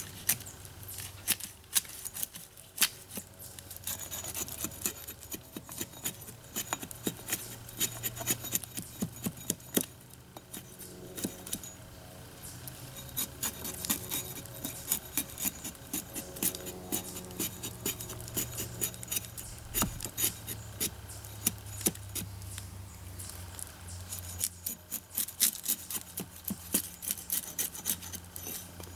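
Steel axe head, held in the hand without a handle, chopping and shaving down a split length of wood. It makes a run of short, sharp cutting strikes at an uneven pace, with bursts of quicker strokes.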